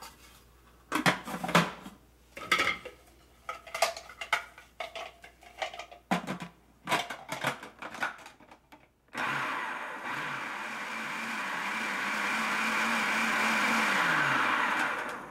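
Plastic clicks and knocks as a food processor's lid and feed-tube pusher are fitted. About nine seconds in, the motor starts suddenly and runs steadily for about five seconds, chopping avocado into purée, then winds down, its hum falling in pitch as it stops near the end.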